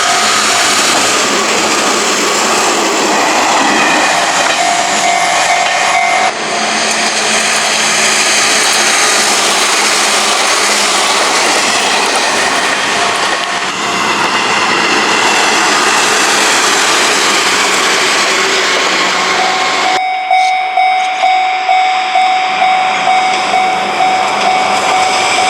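A train passes through a Japanese level crossing at close range: a loud, steady rush of wheels and running gear, with the crossing's warning bell ringing through it. About twenty seconds in, the train has cleared and the crossing bell rings on alone in quick, even strokes.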